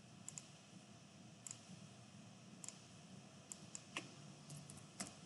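Faint, scattered clicks of a computer mouse and keyboard, about ten of them spread irregularly over a few seconds, as a value is entered in a CAD program.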